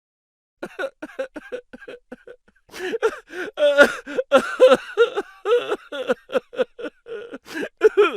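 Laughter sound effect: a voice laughing in quick, short ha-ha bursts that start softly and grow louder and denser about three seconds in.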